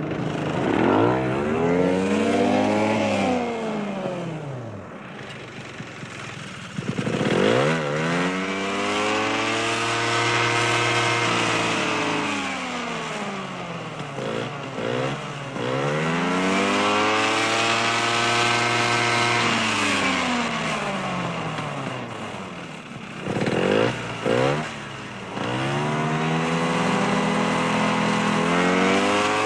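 Off-road ATV engine revving up and down over and over, its pitch climbing, holding and sliding back down in long sweeps of several seconds, with a few short throttle blips in between.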